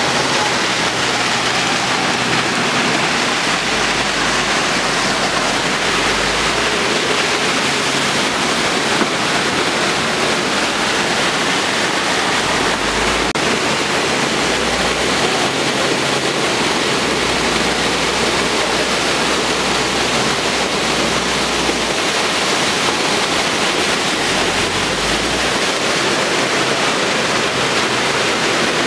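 Steady rush of water, loud and unbroken: muddy floodwater pouring down a channel, with rain falling.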